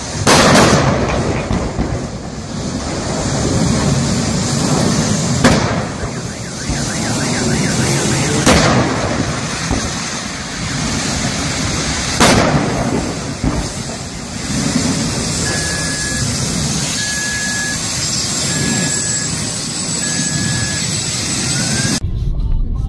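Explosions from a burning vehicle wreck: four sharp loud blasts, one right at the start and others about 5, 8½ and 12 seconds in, over a steady loud rushing noise. Later an electronic beep repeats four times at an even pace.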